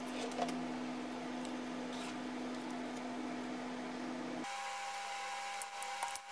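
Steady background hum that switches abruptly to a thinner, higher tone about four seconds in. Near the end, a small screwdriver clicks and scrapes as it pries apart a pager's plastic case.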